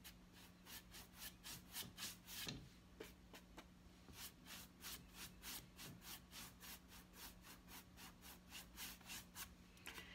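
Faint, quick rhythmic rubbing strokes on a painted canvas, about four to five a second, over a low steady hum.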